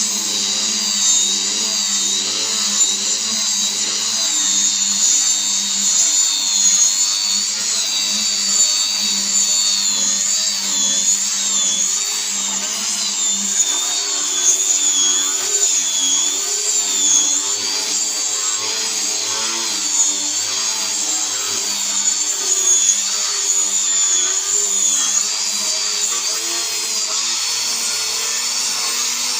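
Angle grinder running without a break, a loud high whine whose pitch keeps wavering up and down.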